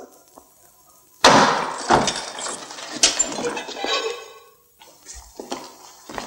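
Heavy metal prison cell door being unbolted and swung open: a sudden loud clank about a second in, then clattering and a ringing metal squeal that dies away over about three seconds. A few fainter knocks, like footsteps, follow near the end.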